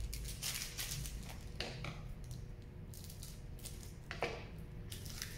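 Foil Magic card booster-pack wrapper crinkling and trading cards being handled: a run of short, irregular rustles.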